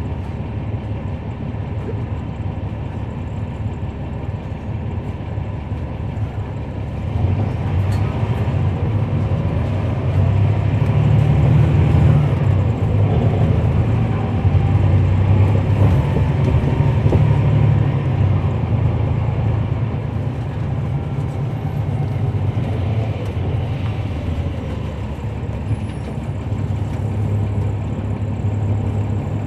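Cummins ISL9 inline-six diesel of a NABI 40-SFW transit bus, heard inside the bus while it is driving. The engine note grows louder about seven seconds in and stays loud for roughly ten seconds, then eases off and builds again near the end.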